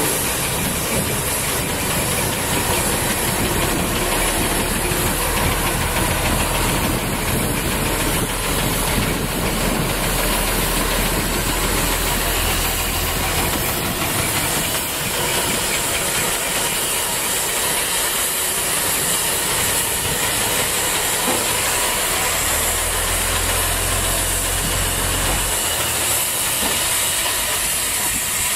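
Small narrow-gauge diesel shunting locomotive running, a steady low engine drone under a loud continuous hiss. The drone drops away about halfway through and returns briefly near the end.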